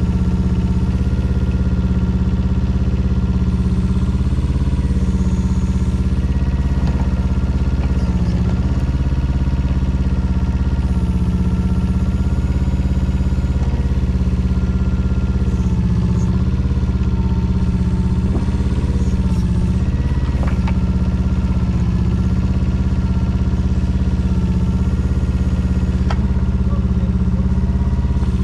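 Engine of a 2004 Daewoo Solar 010 mini excavator, a small 7.5 hp Yanmar, running steadily. Its pitch sags slightly now and then as the boom and tracks are worked, with a few light clicks.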